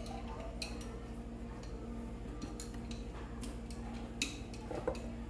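Scattered light clicks and taps of hands putting mint leaves into a glass blender jar of lemon halves, over a steady low hum.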